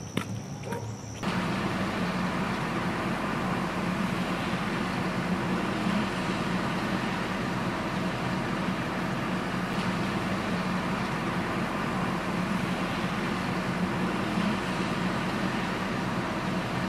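A steady engine drone, like a motor vehicle running nearby, that starts abruptly about a second in and holds an even pitch throughout.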